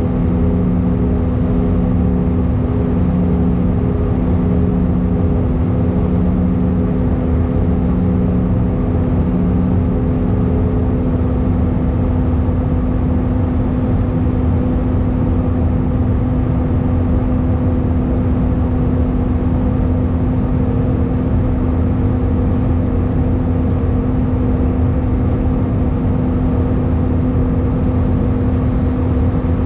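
Airbus A319 cabin noise in flight, heard from a seat over the wing: a steady rush of air with a low engine drone. A pulsing second hum fades out about eleven seconds in.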